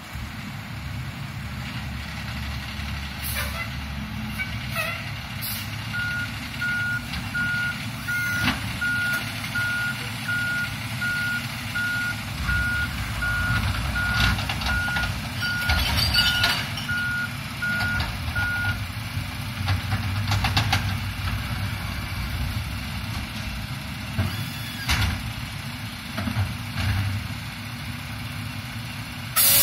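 Garbage truck engine running while its automated arm lifts and empties a wheeled trash cart, with scattered knocks and clanks from the arm and cart. A back-up style warning beeper sounds at a steady pitch about once a second from roughly six seconds in until about nineteen seconds in. A loud short hiss of air brakes comes near the end.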